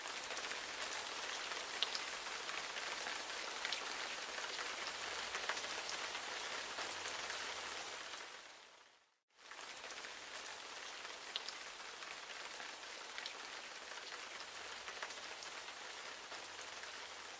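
Steady rain falling, an even hiss with scattered drop ticks. It fades out a little past halfway, starts again after a short gap, and fades out near the end.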